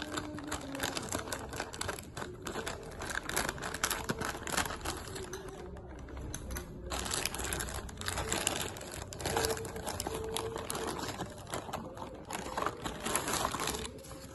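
Plastic courier mailer bag crinkling and crackling as it is handled and torn open by hand, a dense run of sharp rustles and crackles.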